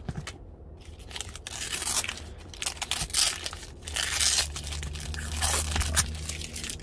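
Protective plastic film being peeled off a mirror-finish LED door sill plate: irregular crackling and crinkling as the film tears away from the surface.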